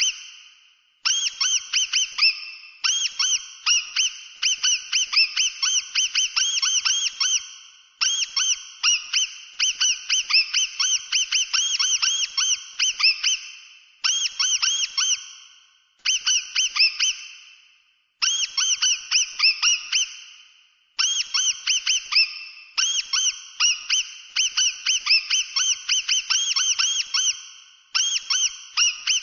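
Mouse squeaking: runs of short, high squeaks, several a second, each rising and falling in pitch, with brief pauses between the runs.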